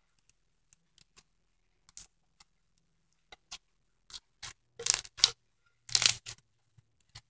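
Floam slime, clear slime packed with foam beads, crackling and clicking as fingers press and squeeze it, in scattered small pops with louder crunchy bursts about five and six seconds in.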